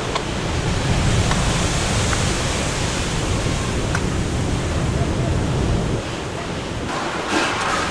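Heavy storm surf breaking under typhoon winds, with the wind blowing across the microphone: a dense, steady rush of noise over a low rumble that eases about six seconds in, and a brief louder surge of spray-like hiss near the end.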